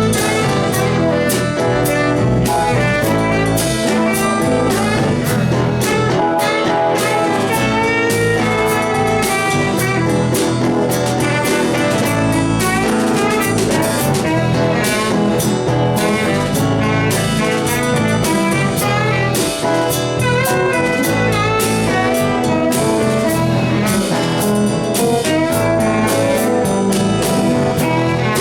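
Live band playing an instrumental passage with no singing, a full mix of melodic instruments over drums.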